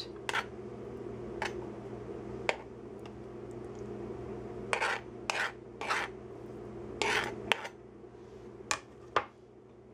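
Metal fork scraping and clicking against a plastic cutting board and plate while pushing sliced chicken onto a salad: a string of short, separate scrapes and taps over a faint steady hum.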